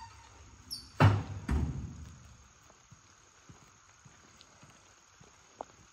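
Campground trash bin lid: a brief squeak, then the lid bangs shut about a second in, with a second bang half a second later. Insects chirr steadily throughout.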